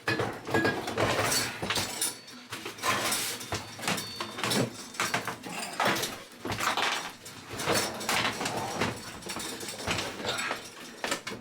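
Rapid, irregular knocks, cracks and scrapes of hand tools tearing into the caravan's interior.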